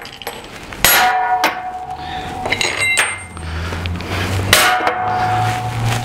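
Steel parts knocking and clanking against a steel frame: four sharp metal strikes that ring briefly, the loudest about a second in and again about four and a half seconds in. A low steady hum comes in about halfway.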